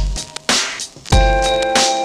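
Background electronic music: held synth chords over a kick drum. It drops away for about half a second midway and comes back in on a kick.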